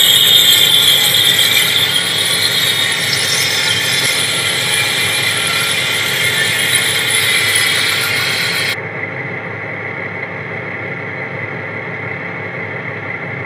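Recorded sawmill sound effect: a large saw cutting through a log with a high whine over a steady engine drone. The cutting noise stops abruptly about nine seconds in, and the engine drone runs on alone.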